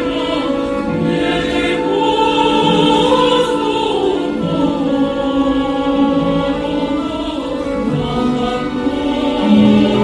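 Slow, sustained music with choir-like singing over held chords, the accompaniment for a stage dance.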